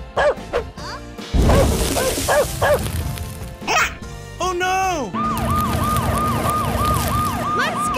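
Siren sound effect for a toy fire truck: a rapid repeating wail, about two to three cycles a second, starting about five seconds in. Before it come a loud rushing noise with short high cries and a falling glide.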